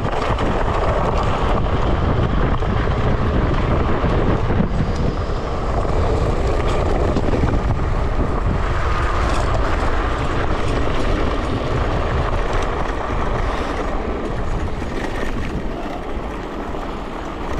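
Electric scooter ridden at speed: wind rushing over the action camera's microphone and tyres rumbling over the ground in a steady noise.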